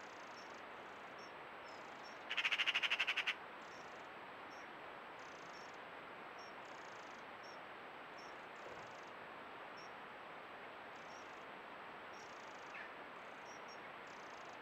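Steady hiss of the trail camera's microphone. About two seconds in, a bird gives one loud, rapid chattering call lasting about a second, and a faint short chirp follows near the end.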